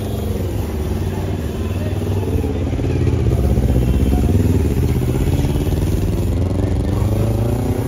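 A motor vehicle's engine running close by, its pitch rising and falling, louder in the middle.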